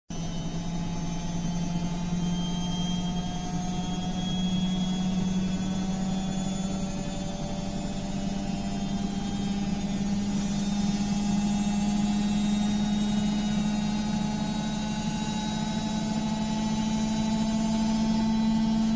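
Washing machine on its spin cycle, the drum speeding up: a steady motor hum that rises slowly in pitch and grows a little louder.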